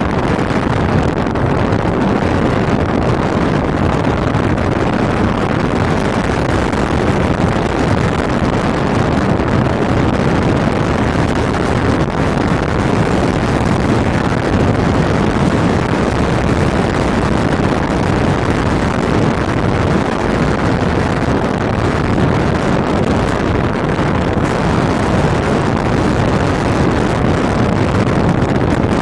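Steady rush of wind and road noise from a moving vehicle, with wind buffeting the microphone.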